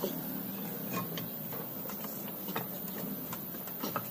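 Scattered light clicks and taps as parts and wiring are handled in a car's engine bay, over a steady low hum.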